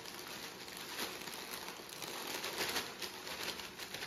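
Mini saltine crackers pouring out of their plastic sleeve into a zip-top plastic bag: a dense run of plastic crinkling and many small cracker clicks, loudest about two and a half seconds in.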